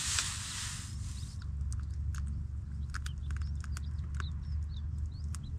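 Soup poured from a small camping pot into a cup: a run of light splashes, drips and trickling clicks over a steady low rumble. A broad hiss stops about a second and a half in.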